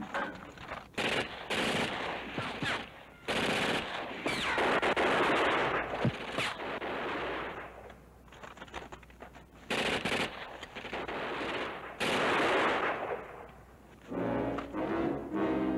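Automatic gunfire from a machine gun in repeated bursts, some brief and some running a couple of seconds, with short gaps between them. Orchestral music with drums comes in near the end.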